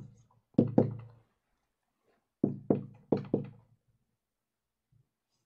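Marker strokes knocking and tapping against a whiteboard during writing. There are two bursts of quick knocks, one about half a second to a second in and another around three seconds in.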